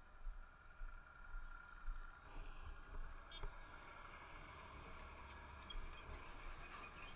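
Motorcycle running along a dirt road with low wind buffeting on a helmet-mounted camera's microphone. From about two seconds in, an oncoming Volvo semi-trailer truck approaches and passes close by, its noise swelling.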